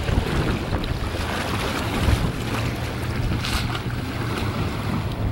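Wind buffeting the microphone over sea water washing and splashing against shoreline rocks, with a brighter splash about three and a half seconds in. A steady low hum runs underneath from about a second and a half in.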